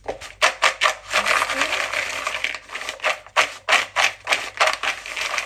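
Cut raw potatoes being tossed and mixed with seasoning: a dense, irregular run of clattering knocks.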